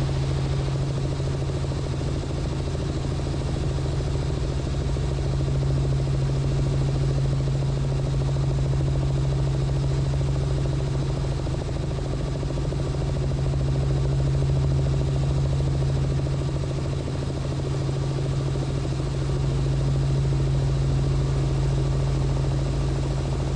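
Robinson R44 helicopter in flight, heard from the cabin: a steady low drone of engine and rotors, unchanging throughout.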